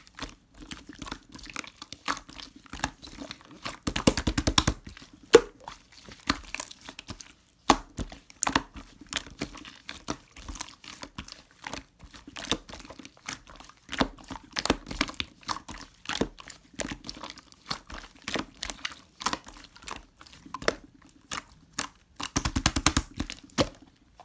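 Crinkly material being handled close to the microphone, making scattered clicks and crackles, with two short spells of fast, even clicking.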